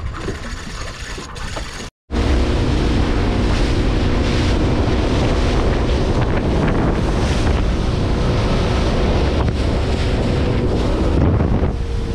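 Boat running underway: a steady engine drone under heavy wind buffeting the microphone and rushing water. About two seconds in, a cut from a quieter stretch of wind and water to the loud running.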